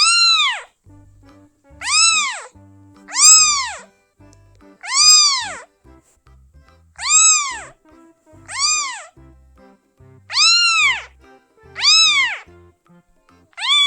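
A kitten meowing again and again, about nine times, roughly every one and a half to two seconds. Each meow is a short high call that rises and then falls in pitch.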